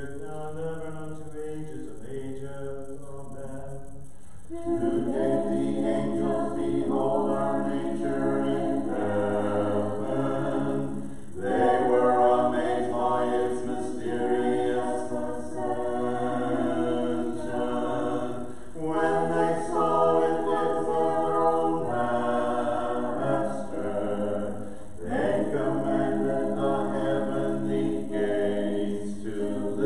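A church choir singing an Orthodox Vespers hymn a cappella, several voices in harmony. The singing is thinner and quieter for the first few seconds, then the full choir comes in about four seconds in and carries on in phrases with short breaks.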